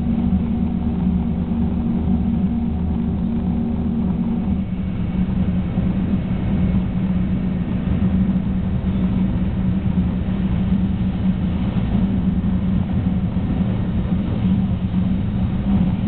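Interior running noise of a 300 series Shinkansen train in motion: a steady low rumble with a constant hum. A higher part of the hum drops away about four seconds in.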